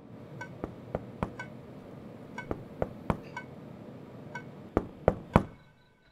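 Water dripping from a kitchen faucet into the sink, a pitched plink about once a second, mixed with sharp knocks on a door in pairs. The loudest three knocks come in quick succession near the end.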